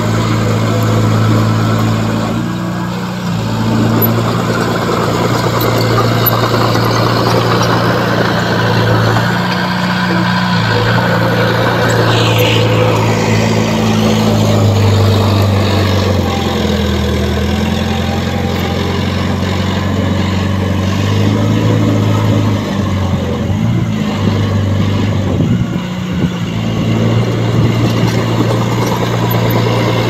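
Diesel engine of a small crawler bulldozer running under changing load as it pushes dirt and rock, its pitch stepping up and down every few seconds. A brief higher rising whine comes in about twelve seconds in.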